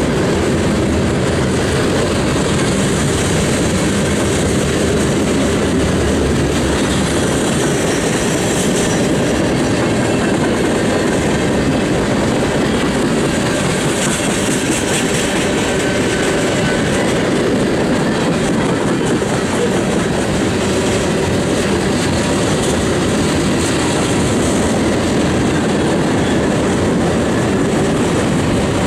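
Freight cars of a long mixed freight train rolling past close by. Steel wheels run on the rails in a loud, steady rumble and clatter.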